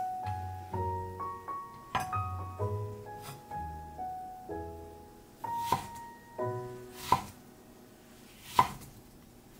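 Gentle solo piano music, with four crisp knife strokes through soft persimmon flesh onto a wooden cutting board. The last stroke, near the end, is the loudest sound, after the piano has faded.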